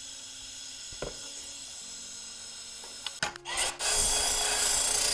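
About four seconds in, a 3M abrasive wheel on a hand drill starts polishing a stainless steel pipe elbow, giving a loud, steady rubbing whir. Before it there is only a faint, steady background.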